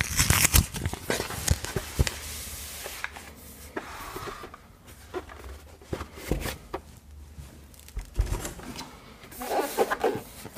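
Protective wrapping rustled and pulled off a Sonos Sub Mini subwoofer, with scattered knocks and thumps as the heavy unit is handled and set down on a wooden desk.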